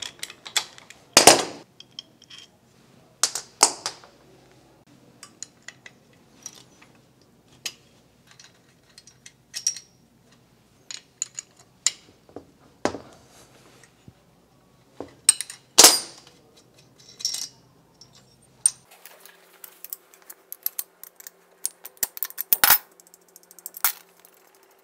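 Bolts being worked loose from an aluminium engine's cylinder assembly with a socket ratchet and a ratcheting wrench: scattered ratchet clicks and sharp metal clicks and clanks. The loudest are a little over a second in and about sixteen seconds in.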